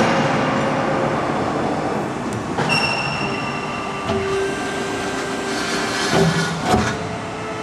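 Steady din of industrial machinery, with high metallic squeals coming and going over it.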